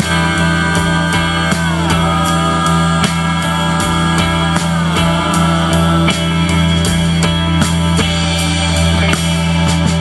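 Live rock band playing: electric guitars, bass, keyboard and drum kit with a steady beat. A high held note slides down about two seconds in and again about five seconds in.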